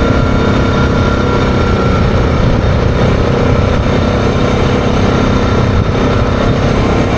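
Yamaha Grizzly 660 ATV's single-cylinder engine running at a steady cruising speed, a continuous drone with an even rushing noise over it.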